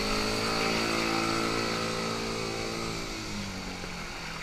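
Kart cross buggy's engine running under load as it drives through a rushing river, over the steady noise of fast-flowing water; the engine note dips and fades about three seconds in.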